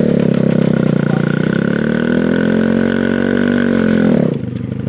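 Rusty minibike's small engine running fast, its pitch dipping and rising again, then dropping sharply to a lower speed about four seconds in.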